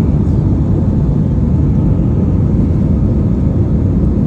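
Steady low roar of an Airbus A320's jet engines and rushing air, heard inside the passenger cabin as the plane climbs through cloud after takeoff.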